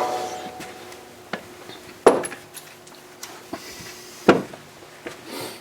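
A few sharp metallic clicks and clanks of hand tools being handled, the loudest about two seconds in and again near four seconds, over a faint steady hum.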